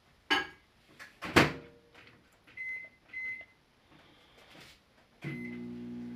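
Microwave oven being set and started: two loud clunks, two short keypad beeps, then another beep about five seconds in and the steady hum of the oven running.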